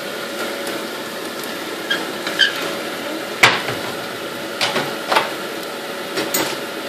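Onion, ginger and garlic curry base frying in a stainless steel pot, a steady sizzle. A few short squeaks and sharp clicks cut through it, the loudest click about three and a half seconds in.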